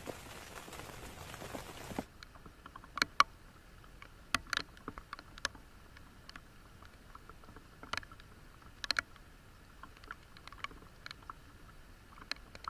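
Heavy rain hissing steadily that cuts off abruptly about two seconds in, followed by scattered sharp taps and clicks, a few louder ones among them, over faint background.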